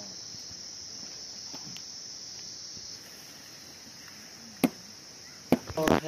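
Steady high-pitched insect drone that stops about halfway through, followed by a few sharp knocks near the end.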